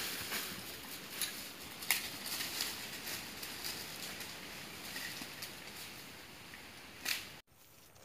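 Footsteps crunching and crackling on dry leaf litter, over the steady hiss of a small trickling stream. The sound cuts off abruptly near the end.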